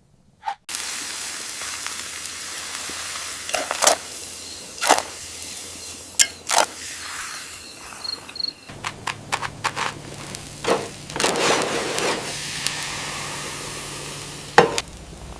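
Food sizzling steadily in a hot pan, broken by scattered sharp clicks and knocks of utensils.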